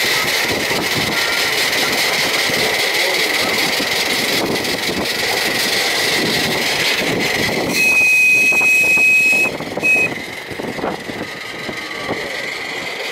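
Ride-on miniature railway train running along its track with a steady rumble and a faint whine. About eight seconds in its whistle sounds, one long blast and then a short one. After that the running noise drops away as the train eases toward the station.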